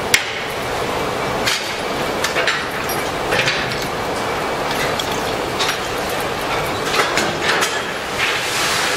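Slow-rolling narrow-gauge coal tipper wagons, with scattered sharp metallic clinks and knocks over a steady industrial din and a faint hum. The loudest knock comes right at the start.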